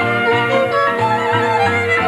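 Instrumental music with many held pitched notes over a steady low beat, about three pulses a second.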